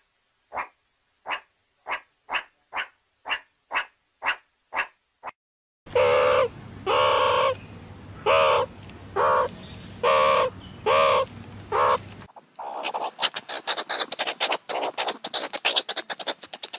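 Meerkat calls spliced from several recordings: first a run of short calls about two a second, then about halfway in louder pitched calls roughly once a second over a steady hum, then a rapid, dense chattering of sharp chirps for the last few seconds.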